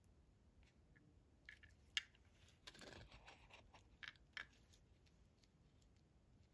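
Faint handling noise from two small Matchbox toy pickup trucks being turned in the fingers: a few light clicks, a brief scrape about three seconds in, and two more clicks a little later, otherwise near silence.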